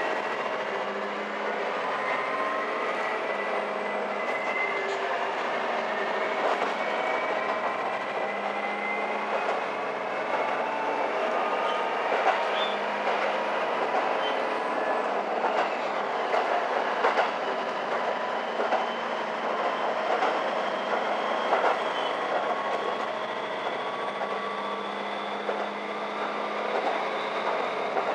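Cabin sound of a diesel railcar running on rural track: a whine that rises slowly in pitch as the train gathers speed, with wheels clicking over rail joints.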